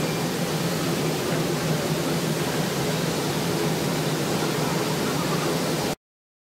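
Steady rushing hiss with a low hum from workshop air extraction running, cutting off suddenly near the end.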